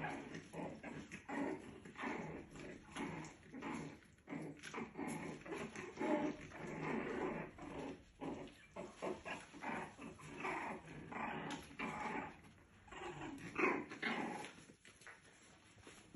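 Two puppies play-fighting, giving small, repeated growls in short bursts.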